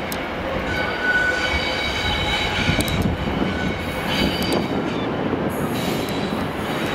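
Freightliner Class 66 diesel-electric freight locomotive running steadily as it approaches over curved pointwork. Its wheel flanges squeal in thin high tones on the curves, from about one to three seconds in and again briefly about four seconds in.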